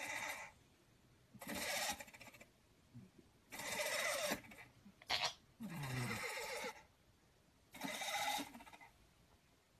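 A sleeping cat snoring: rasping breaths about a second long, repeating roughly every two seconds, with one short sharp sound about halfway through.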